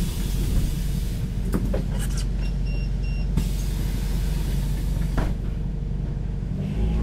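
Auxiliary diesel engine of a Hess BGT-N2C (Swisstrolley 3) articulated trolleybus running with the trolley poles down, a steady low rumble. A few light clicks and a brief high beep come about two and a half seconds in, and the rumble swells near the end.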